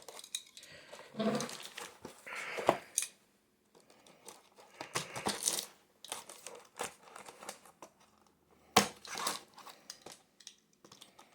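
A parcel's packaging being torn open and crumpled by hand, in irregular rustling and tearing bursts with short pauses, and a sharp knock about nine seconds in.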